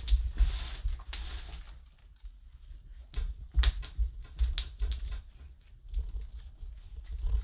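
Hands working potting soil and granular substrate around a potted banana plant: rustling and scraping in the first two seconds, then a run of sharp clicks and scrapes as the soil is pressed down, over a low rumble.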